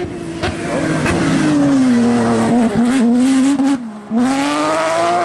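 Rally car engine at high revs, its pitch falling and then wavering as the driver works the throttle through the corner, with a few sharp pops early on. Near four seconds it drops away briefly, then the engine note climbs again under hard acceleration.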